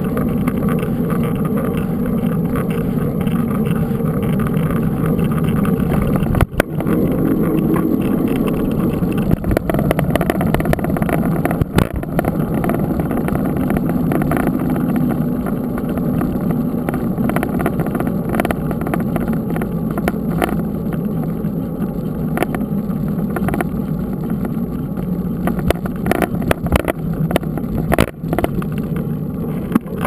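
Steady rumble of wind on the microphone and knobby mountain-bike tyre noise rolling on asphalt, heard from a handlebar-mounted camera, with a few sharp knocks as the bike jolts over bumps.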